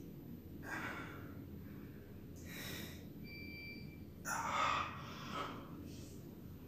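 A man straining, with short breathy grunts and hisses through clenched teeth: four bursts, the loudest a little past halfway. A short high tone sounds once about halfway through.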